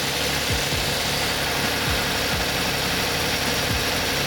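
2008 Toyota Sienna's 3.5-litre V6 idling steadily, its new water pump and belt tensioner pulley running quietly.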